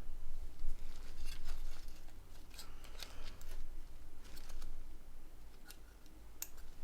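Irregular small clicks and scrapes of a tool prying at the plastic of a Nokia N91 battery cover to free the magnet inside it.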